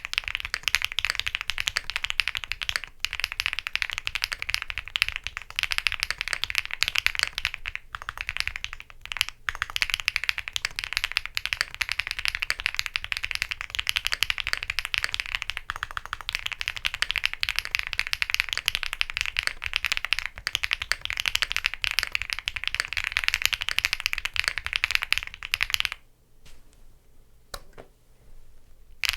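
Fast, continuous typing on a gasket-mounted Owlab Jelly Evolv custom mechanical keyboard with an FR4 plate, Krytox-lubed HYACINTH V2U switches and PBT keycaps: a dense stream of keystrokes. The typing stops about 26 seconds in, leaving only a few faint clicks.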